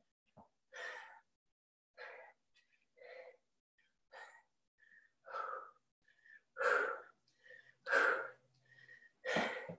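A person breathing hard from exertion during a workout: short forceful exhales, about one every second or so, getting louder toward the end.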